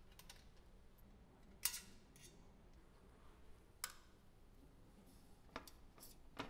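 A handful of faint, sharp clicks over near silence, the loudest a little under two seconds in, as small screws are taken out of an adiabatic demagnetization refrigerator's 77 K shield and handled in gloved fingers.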